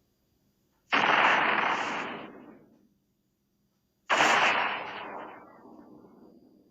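Two film sound-effect blasts like gunshots or explosions, about three seconds apart, each starting sharply and dying away over about two seconds.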